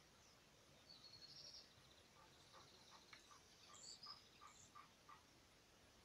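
Faint birdsong: a short, rapid high trill about a second in, then a series of about nine evenly spaced lower notes, with a few high chirps over them.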